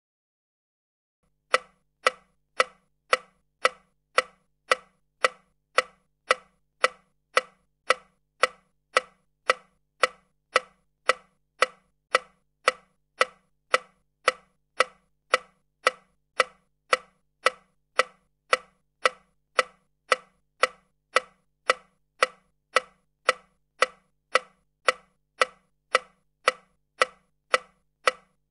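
Steady, even mechanical ticking, about two sharp ticks a second, starting about a second and a half in after a short pause.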